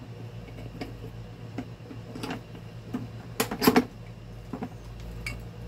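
Light clicks and knocks of electric-fan parts, the gearbox and motor housing, being handled and set down on a workbench, with a cluster of louder knocks a little past halfway, over a faint steady low hum.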